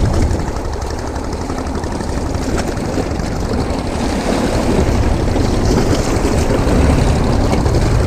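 Wind buffeting the microphone in a steady low rumble, over the wash of waves against rocks.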